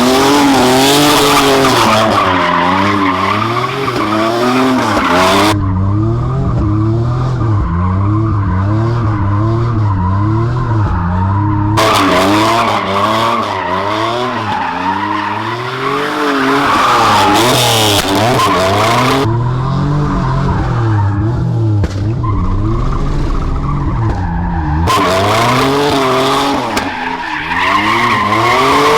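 Camaro with a welded rear differential doing donuts: the engine revs up and down about once a second while the rear tyres spin and squeal. The tyre squeal comes in three long stretches, with the engine heard alone between them.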